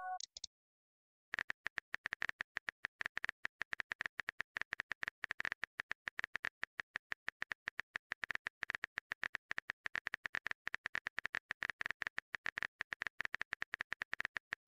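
Rapid clicking of a phone-keyboard typing sound effect, starting about a second in, with the tail of a short message chime fading at the very start.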